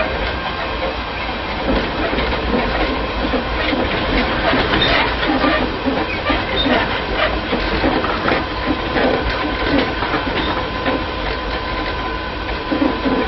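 Cabin running noise of a Tobu 5050 series electric train with nose-suspended traction motors, riding on 1958-built 7800 series running gear. The wheels clatter over the track with many sharp clicks, over a steady rumble and a faint steady tone.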